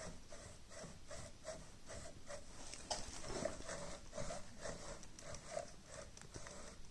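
A dog panting steadily and quickly, about three breaths a second.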